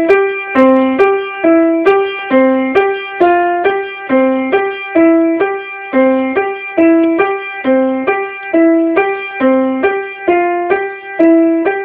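Piano played with the left hand alone: a repeating broken-chord accompaniment, about three notes a second, with low and higher notes alternating at an even pace.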